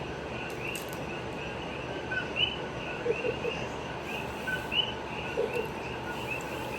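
Steady chorus of high, repeated chirping calls, with a louder two-note chirp about every two and a half seconds, over a faint background hiss.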